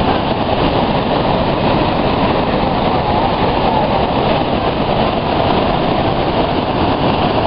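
Loud, steady rush of floodwater pouring through the open spillway gates of the Krishnaraja Sagar (KRS) dam and churning white below them, the reservoir being at full capacity.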